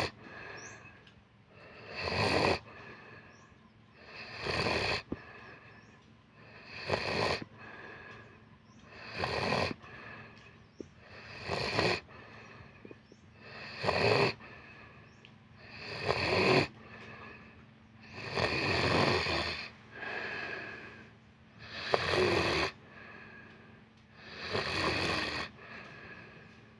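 Someone asleep and snoring heavily: a loud snore on each breath, about every two and a half seconds, each lasting about a second, with quiet breathing between.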